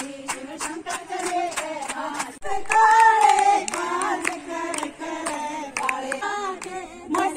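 A group of women singing together while clapping their hands to a steady beat. The singing grows louder about two and a half seconds in.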